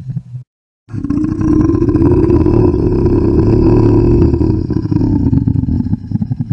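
Zombie moan sound effect: the tail of one moan cuts off just after the start, and after a short gap a single long, rough, drawn-out groan begins about a second in and holds for about six seconds.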